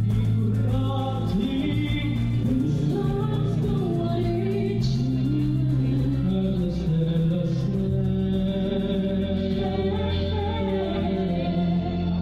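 Music with singing, played loud over a line-array PA system.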